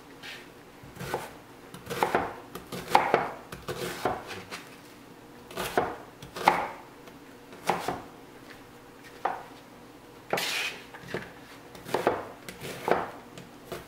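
Chef's knife dicing a white onion on a plastic cutting board: irregular knocks of the blade on the board, some in quick pairs, with short pauses between.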